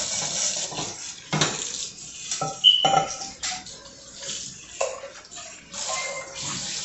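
Pots and metal utensils being handled, clanking and clinking: several separate knocks, one with a short ringing clink about three seconds in.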